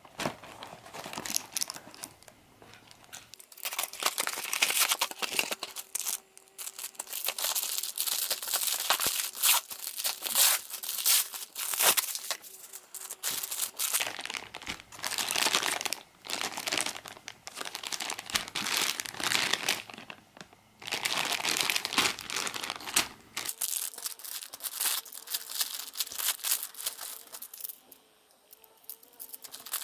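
Thin clear plastic parts bags crinkling and tearing as they are handled and opened, in irregular bursts with sharp crackles, easing off briefly near the end.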